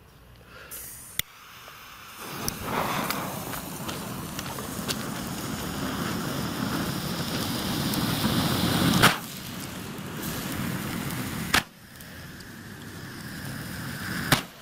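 Vulkan ground fountain firework spraying sparks: a rushing hiss that starts about two seconds in and swells, broken by three sharp cracks. After the second crack the hiss runs quieter.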